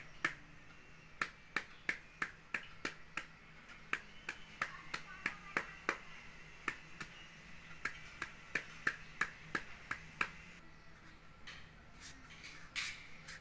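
A kitchen knife chopping into a peeled green papaya held in the hand, scoring the flesh for shredding: sharp, crisp clicks at about three a second. The clicks stop about ten seconds in, and a few more come near the end as the shredding begins.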